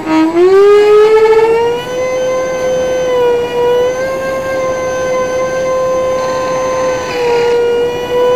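Electric ducted fan of a Dynam Turbo Jet RC model heard from inside its cockpit, a loud harmonic whine that the owner tried to cure by balancing the fans. The pitch rises sharply near the start as the throttle opens and the model climbs away, then holds steady.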